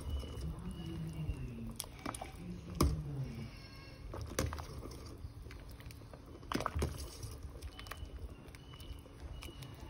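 A metal ladle knocking against a stainless-steel stockpot several times while stirring broth, the loudest knock a little under three seconds in. A faint low wavering sound runs between the first few knocks.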